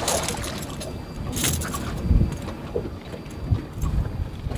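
Small waves slapping against a boat's hull, with several low thumps about two seconds in and toward the end.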